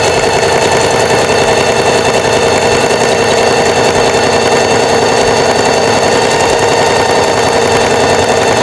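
Singer 4423 Heavy Duty sewing machine running steadily at speed, sewing a short, narrow zigzag stitch: a constant motor whine with the rapid chatter of the needle.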